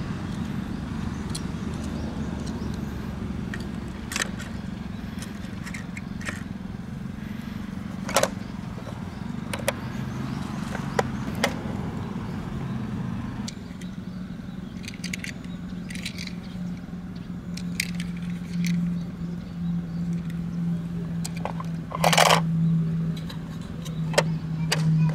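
Sharp plastic clicks and clacks as a die-cast toy car is slotted into a plastic Tomica convoy carrier case and the case's hinged parts are closed and opened, with a louder clatter near the end, over a steady low hum.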